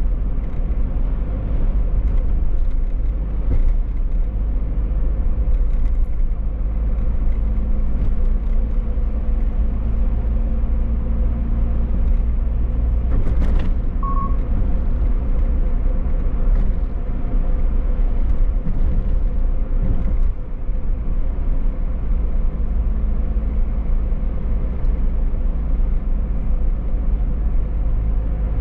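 Toyota car being driven: a steady low rumble of engine and road noise. A short high beep sounds about fourteen seconds in.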